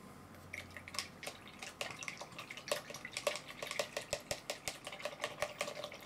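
A paintbrush being swished in a pot of rinse water, clinking and tapping against the sides of the pot in a quick, irregular run of clicks that starts about half a second in.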